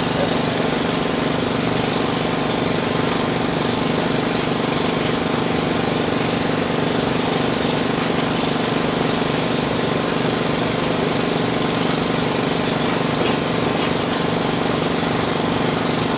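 A steady mechanical drone, like an engine running at a constant speed, with a few fixed hum tones over an even rush; it does not rise or fall.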